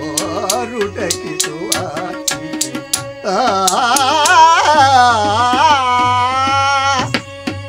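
Carnatic-style Harikatha music: a melody over a steady drone with regular percussion strokes, then from about three seconds in a louder, wavering sung phrase held without words until near the end.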